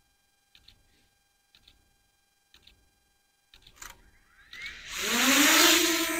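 A few faint clicks about once a second, then a DJI Mini 2 drone's propellers spin up about four and a half seconds in, rising to a loud whirring buzz with a steady hum.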